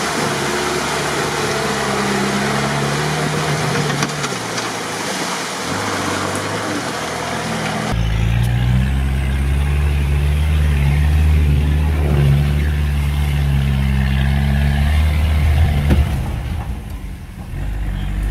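UAZ off-roader on oversized mud tyres revving hard as it churns through deep mud. About halfway through, the deep engine drone comes to the fore, rising and falling with the throttle. The driver's over-revving on this pass broke a driveshaft U-joint.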